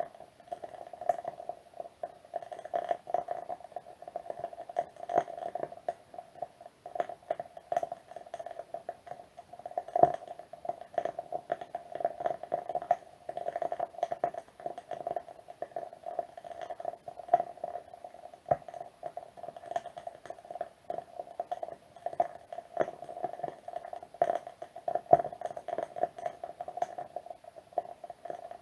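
Wood wick candle burning with a steady soft crackle and frequent sharp little pops, a few of them louder, one about ten seconds in.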